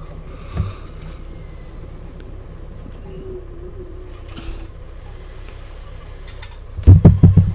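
Doosan 4.5-ton forklift at work: a faint steady engine hum with a few light knocks. A loud, choppy low burst comes near the end.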